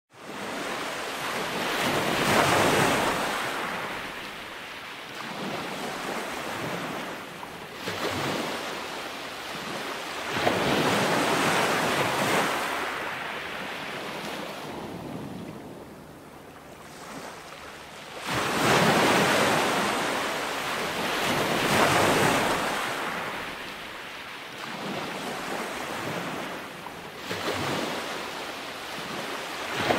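Ocean waves washing on a shore, the surf swelling and falling away every few seconds.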